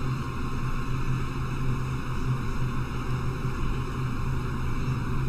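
Steady low hum with an even hiss: constant background noise from the recording setup, with no clicks or other distinct sounds.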